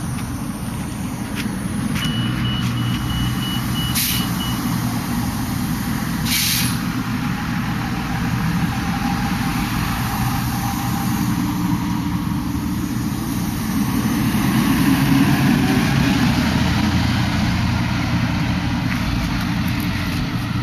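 Shuttle bus running, its engine and road noise steady, with two short air-brake hisses about 4 and 6.5 seconds in. A rapid series of short high beeps sounds from about 2 to 5 seconds in.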